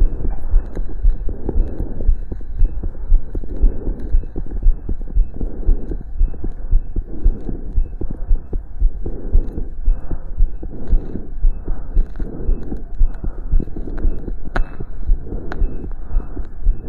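A human heart beating, heard through a stethoscope: a steady run of low, muffled thuds, beat after beat, in a heart working under exercise. Sharp little clicks break in here and there, one of the strongest about three-quarters of the way through.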